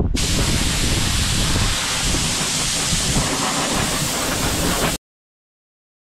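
Loud, steady rushing noise with no pitch to it, starting abruptly and cutting off suddenly about five seconds in.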